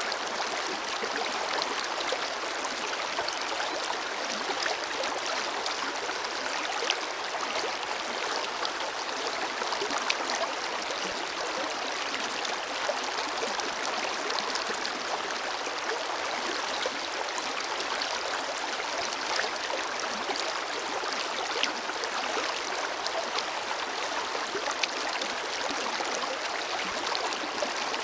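Forest river flowing steadily over stones: continuous rushing and babbling with small splashes scattered throughout.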